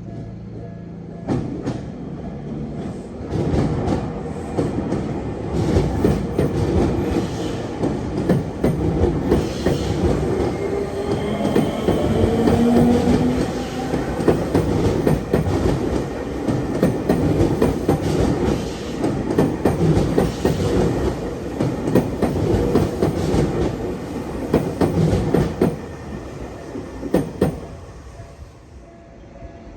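Electric commuter train on the Tokyu Meguro Line passing close by at a level crossing, its wheels clacking over the rail joints. It builds about a second and a half in, stays loud for most of the passage and dies away near the end.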